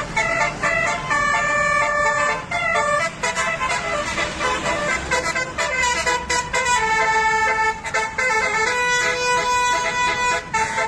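Indonesian bus 'telolet' multi-tone air horn of the Basuri type playing a tune: a run of short and held horn notes that keep changing pitch.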